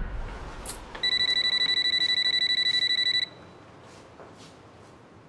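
Portable phone ringing: one electronic trilling ring lasting about two seconds, starting about a second in.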